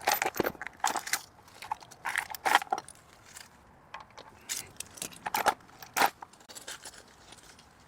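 Short, irregular metallic clinks and rattles of tools and gear being handled under the truck, in clusters that thin out near the end.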